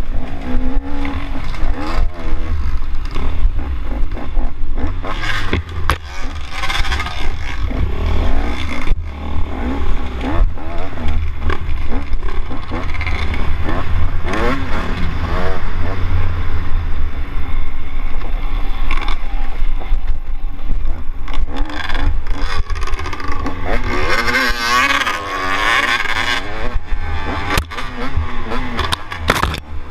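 Dirt bike engine revving up and down through the gears as it is ridden over a rough trail, with a heavy low rumble of wind on the microphone and knocks from bumps.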